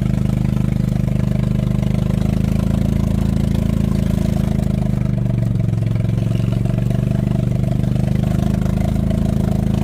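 An engine running steadily, its pitch dipping slightly about halfway through and coming back up near the end.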